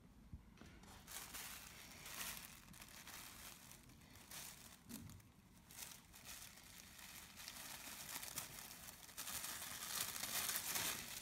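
Tissue paper and cotton twill fabric rustling and crinkling in irregular surges as hands lift folded boxer shorts from a box and pull the tissue paper out from between them. The crinkling is loudest in the last two seconds.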